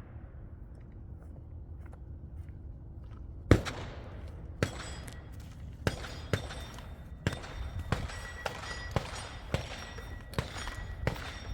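A string of about a dozen gunshots fired in quick succession, roughly two a second, starting about three and a half seconds in with the first shot the loudest; shooting on targets while moving.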